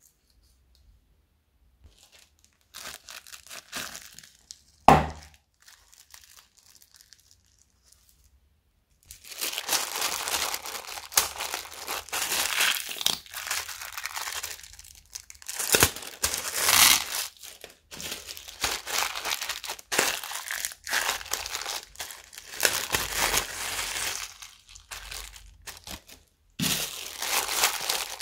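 Small plastic zip-lock bags of beads crinkling as hands squeeze and open them, in bursts that go on almost without a break after a quiet start, with one sharp click about five seconds in.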